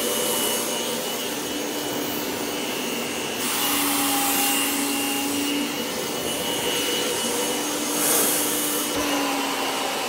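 Kirby G5 upright vacuum running steadily at its highest speed with the hose attached: a constant motor whine over rushing air. The rush of air swells about three and a half seconds in and again briefly around eight seconds.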